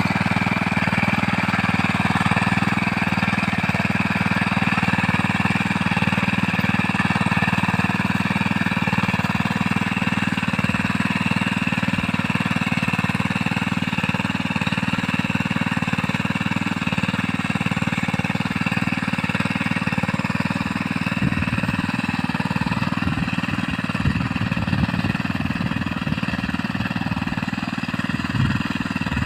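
Small engine of a mini rice-paddy plowing machine running steadily, with some uneven low knocks in the last third.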